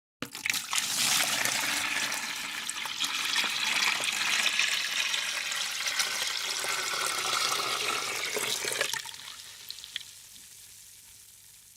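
Water running, starting suddenly as a full, steady rush; about nine seconds in it drops off and dwindles to a fading trickle.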